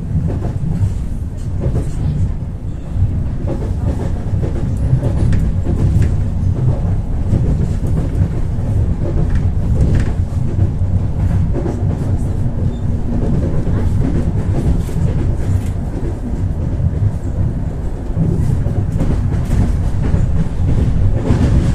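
Ivolga 4.0 electric multiple unit running at speed, heard from inside the carriage: a steady low rumble of wheels on rails with occasional light clicks.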